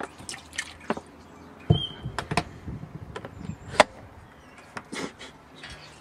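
A dishwasher being handled before it is switched on: a run of clicks and knocks, with a heavy thump a little under two seconds in, a short squeak just after, and a sharp knock near the four-second mark.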